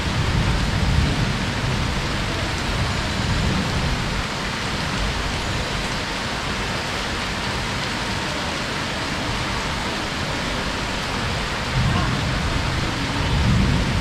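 Heavy rain falling steadily, a dense even hiss. Low rumbles swell under it near the start and again near the end.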